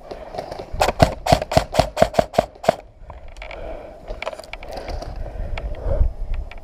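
Airsoft gun firing a quick string of about nine shots, four to five a second, followed by scattered clicks and rustling of the player moving with gear.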